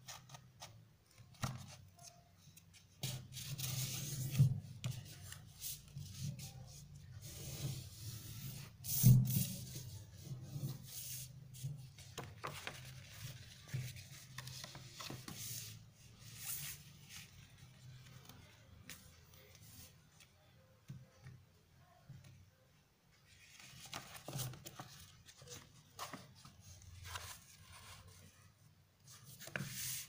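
Paper being folded and creased by hand: irregular rustling and rubbing as fingers press the folds flat on a table, in short clusters, the loudest about nine seconds in.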